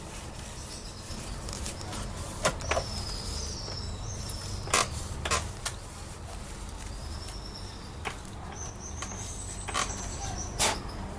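Scattered sharp clicks and knocks of plastic and metal parts being handled inside an opened photocopier during cleaning, over a low steady hum. Thin high whistling tones come and go, the longest lasting a couple of seconds.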